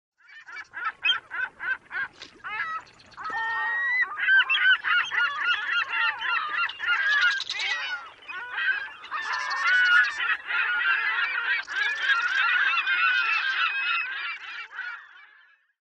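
A flock of gulls calling. First comes a quick string of separate squawks, then from about three seconds in many overlapping calls at once, which stop shortly before the end.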